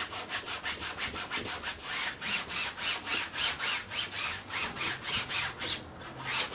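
A cloth rag rubbing thin brick-red oil paint onto a stretched canvas in quick back-and-forth strokes, a rhythmic scrubbing hiss several times a second, toning the canvas before drawing. The strokes break off briefly near the end.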